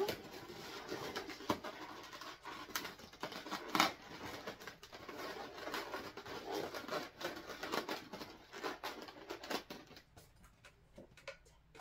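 Inflated latex modelling balloons squeaking and rubbing under the hands as they are pressed and worked into a heart shape, in irregular short squeaks with a sharper one a little before four seconds in; the handling thins out near the end.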